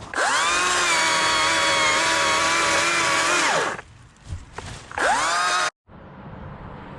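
Stihl chainsaw revved up to full throttle and held for about three and a half seconds, then dropping back to idle. It is revved again briefly, and the sound cuts off suddenly.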